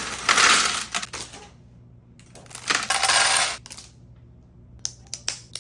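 A bagful of small plastic Lego pieces poured out and clattering onto a hard surface, in two rattling pours about two seconds apart, then a few scattered single clicks near the end.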